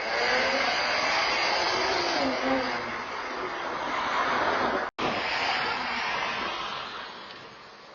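A car driving close by, its engine and tyre noise loud and steady, fading away near the end. The sound cuts out for an instant about five seconds in.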